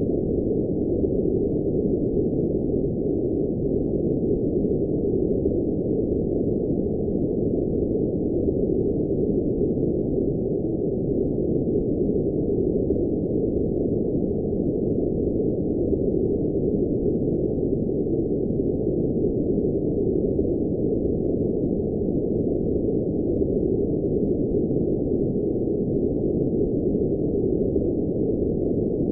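Steady, unchanging synthetic noise, sold as blue noise, but with all its energy below about 1 kHz and most of it in the low hundreds of hertz: a dull, muffled rush with no hiss on top.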